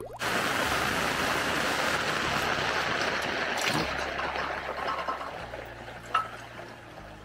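Rain falling heavily, a dense, even hiss that starts suddenly and gradually eases over the last few seconds. A couple of sharp taps come partway through and near the end.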